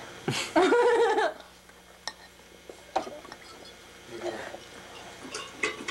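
A person's short wordless vocal sound, about a second long near the start and bending up and down in pitch, followed by a few light knocks and faint voices.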